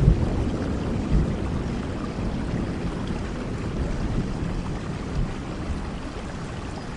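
Steady rain with the low rumble of thunder dying away, the whole growing gradually quieter.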